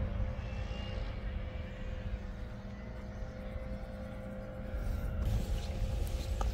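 Steady engine drone over a low rumble, held at an even pitch throughout.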